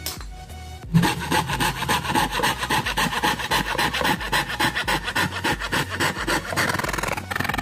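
Hand fretsaw cutting through plywood with quick, even back-and-forth strokes, starting about a second in.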